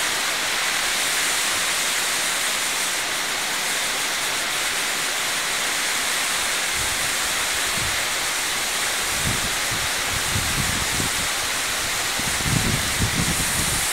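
Heavy cloudburst rain: a steady, dense hiss of rain pouring onto the street and roofs. In the second half, irregular low buffeting bumps break in, strongest near the end.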